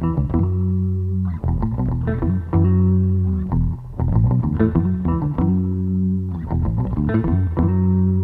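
Background music: a guitar-and-bass track with a repeating riff of held bass notes and quick plucked guitar notes.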